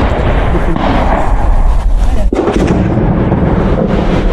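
Heavy gunfire and explosions at close range, loud and continuous, with one heavier blast a little over two seconds in.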